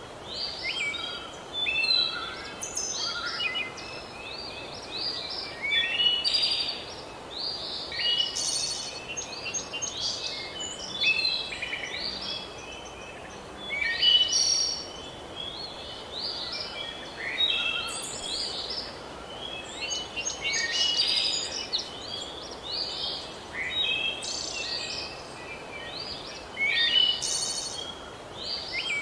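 Birds singing, with bursts of quick chirps and short whistled notes every few seconds over a soft, steady background hiss.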